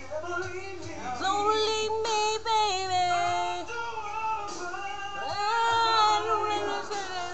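A woman singing along over recorded music with a steady bass line, holding long notes that slide between pitches; loudest about six seconds in.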